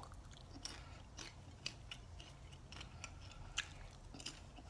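A person chewing a mouthful of Smartfood caramel and cheddar cheese popcorn: faint, irregular crisp crunches.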